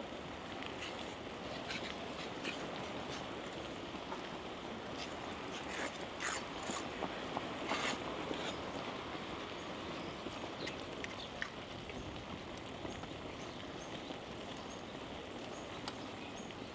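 Bicycle rolling along a street: steady tyre and road noise, with a run of short clicks and rattles about six to eight seconds in.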